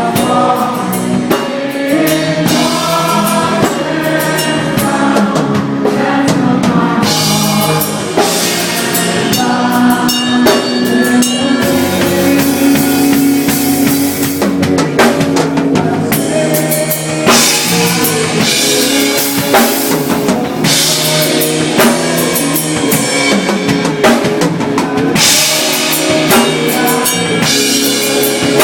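A band playing loud music during a sound check, with a full drum kit (kick and snare hits) over bass and pitched instruments, continuous throughout.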